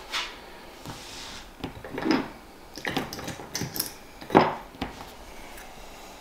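Small hard objects being handled and knocked against a wooden desk: scattered clicks and knocks, the loudest a little past four seconds in.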